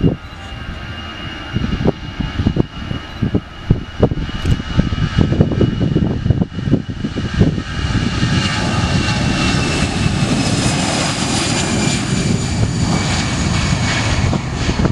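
Jet airliner's twin turbofan engines at takeoff thrust during the takeoff roll, an easyJet Airbus A320-family jet. The sound grows louder from about halfway as the jet passes close by, with a high engine whine that slowly falls in pitch. Short thumps of wind hit the microphone in the first half.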